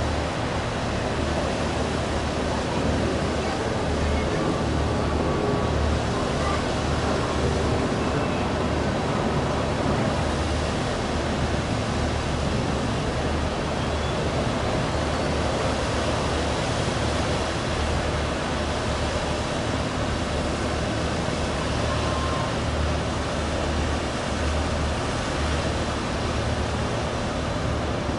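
Catamaran fast ferry's engines and waterjets running while it manoeuvres off the berth: a steady low rumble under a rushing wash of churned water.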